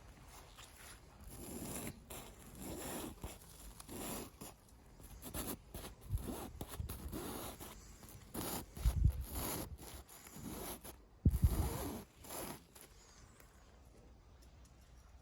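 Irregular scraping and rustling handling noises, with two heavier thumps in the second half, dying away shortly before the end.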